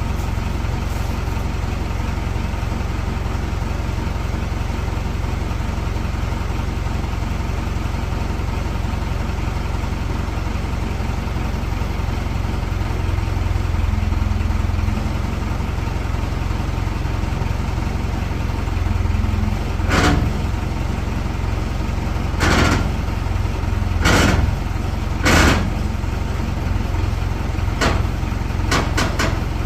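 An idling engine hums steadily, its tone thickening twice as it takes load, while a pickup truck bed is pulled up off its frame by straps. From about two-thirds of the way in come five or so sharp clunks and pops as the bed shifts and breaks free.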